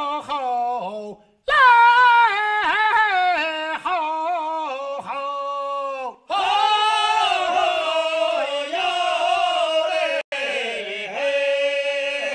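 Drama theme song: a voice singing long, held, wavering notes in drawn-out phrases, with short breaks between phrases about every four to five seconds.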